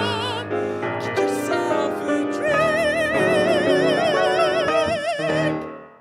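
Singer's voice with wide vibrato over grand piano accompaniment, closing the song on one long held high note from about two and a half seconds in; voice and piano die away just before the end.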